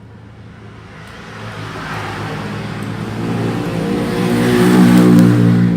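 A motor vehicle passing by, its engine hum and road noise swelling to a peak about five seconds in, then dropping away.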